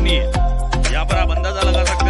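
Background music with a steady drum beat and bass over melodic lines.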